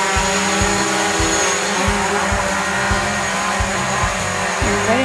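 DJI Mavic Pro quadcopter flying indoors: its propellers give a steady, loud multi-tone hum and whine, with irregular low thumps underneath.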